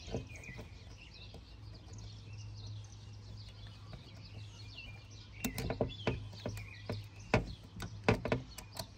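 Birds chirping faintly over a steady low hum. From about halfway in there is a run of small sharp clicks as a piston ring is stretched by hand and worked into its groove on the aluminium piston.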